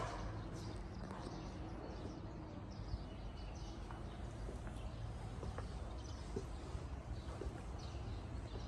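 Footsteps on a tiled floor, light irregular taps, over a steady low rumble of wind on the microphone.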